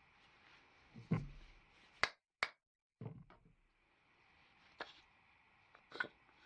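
A few scattered sharp knocks and clanks of blacksmith's tools and steel being handled at the forge, about a second apart, with a brief dead gap of silence near the middle.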